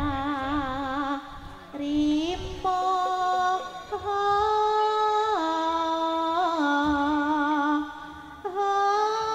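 A woman singing a Javanese song into a microphone over a loudspeaker, in long held notes with a wavering ornament, stepping up and down in pitch between short breaths between phrases.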